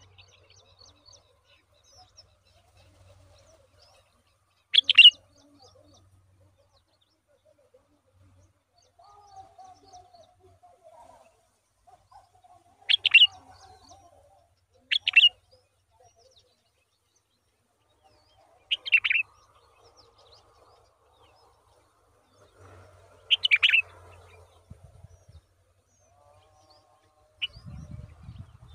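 Bulbuls at the nest giving short, sharp chirps, five loud ones spaced several seconds apart, with faint twittering between. A low rumbling noise comes in near the end.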